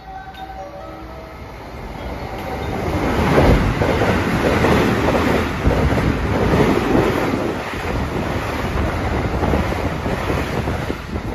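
Electric rapid-service train running through the station at high speed without stopping. A rising rush of wheel and air noise peaks a few seconds in, then a steady rumble of passing cars, with wheels clicking over rail joints and wind buffeting the microphone.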